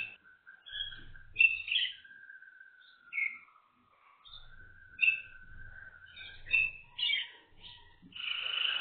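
Waterslager (Malinois) canaries singing: a long, low, held note that sinks a little in pitch about three to four seconds in and climbs back, with short higher chirps sounding over it.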